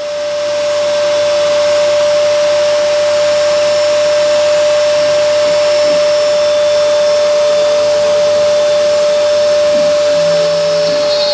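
CNC router spindle running at a steady speed: a constant high whine over an even rushing noise.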